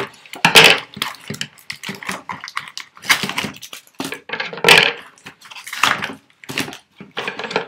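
Cardboard box and plastic packaging being pulled and handled, an irregular run of rustles and scrapes with sharper bursts every second or so.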